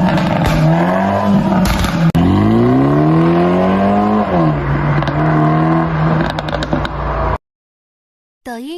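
BMW Z4 G29's B48 2.0-litre turbo four-cylinder running through an RES stainless-steel mid pipe and valved muffler exhaust, revving: a short blip, then a longer climb of about two seconds that drops sharply back to a steady idle, with a few crackles near the end before the sound cuts off abruptly. A brief rising tone follows just before the end.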